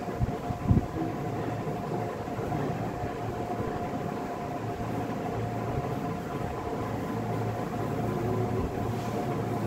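Steady mechanical hum and hiss of room background noise, with two short low thumps under a second in.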